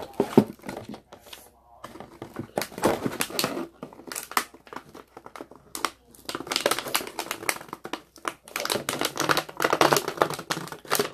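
Clear plastic clamshell packaging crinkling and crackling as it is handled and pulled away from an owl coin bank, in bursts with a short lull about halfway through.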